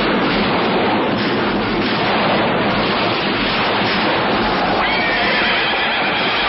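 A steady, loud rush of dense noise. About five seconds in, a drawn-out, high, wavering cry joins it.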